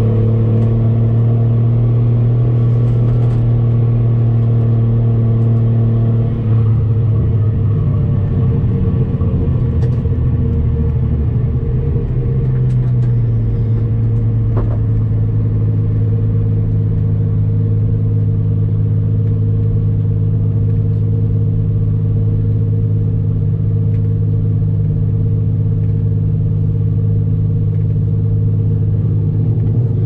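Toyota 1JZ VVTi straight-six engine of a swapped Nissan 240SX, heard from inside the cabin, droning at a fairly steady engine speed. The pitch shifts a little about 6 seconds in, settles slightly lower about 13 seconds in, and starts to rise again right at the end.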